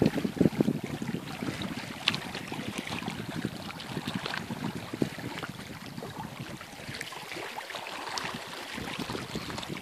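Wind buffeting the microphone in uneven gusts, easing off about seven seconds in, with small waves lapping and ticking against the rocky lakeshore.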